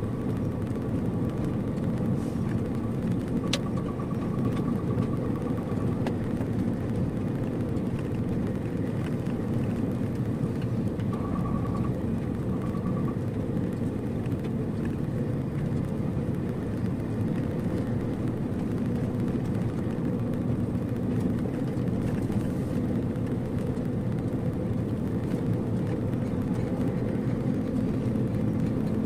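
Steady low rumble of a vehicle driving along a road, even throughout. A faint pulsing high tone sounds over it during the first six seconds and again briefly about twelve seconds in, and a single sharp click comes about three and a half seconds in.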